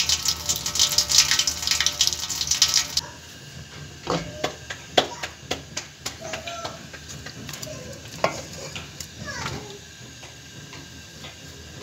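Tap water running into a stainless-steel sink, cutting off sharply about three seconds in. After that, a spoon knocks and scrapes against a metal pot of chicken curry as it is stirred and served.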